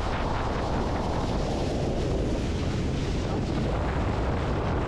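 Speedboat running at speed across open water: a steady rush of engine and water noise with heavy wind buffeting the microphone.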